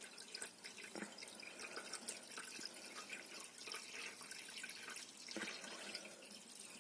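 Faint water trickling and dripping as it is poured into a hydroponic grow unit's reservoir, filling it toward the max mark.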